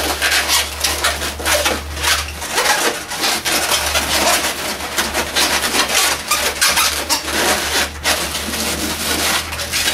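Latex 260 twisting balloons squeaking and rubbing against each other and the hands as they are twisted and wrapped together. A steady low hum runs underneath.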